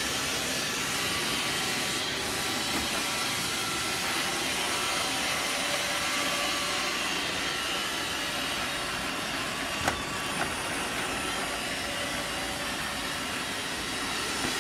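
Robot vacuum cleaner running, a steady even noise, with a brief click about ten seconds in.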